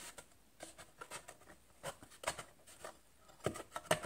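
Pencil scratching short marks on a wooden part, guided along a metal rule, with a few light taps and scrapes of the rule and hands against the wood.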